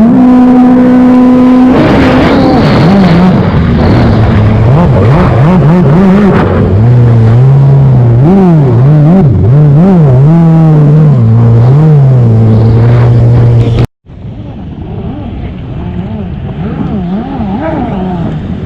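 A loud engine revved up and down over and over, its pitch rising and falling every half second or so. It cuts off abruptly about fourteen seconds in, then returns quieter.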